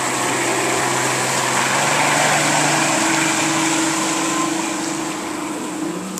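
Mercury 200 OptiMax two-stroke outboard motor running under throttle as the boat pulls away, its propeller churning the water. The engine note rises about halfway through and drops back near the end.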